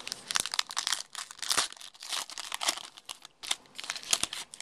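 A trading-card pack's wrapper being torn open and crinkled by hand: a quick run of irregular crackles and rips.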